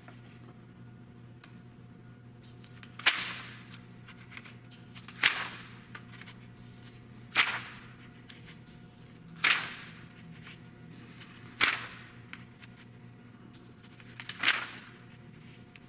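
Magazine pages being turned by hand, six times about every two seconds: each turn is a sharp snap of paper followed by a short rustle that dies away.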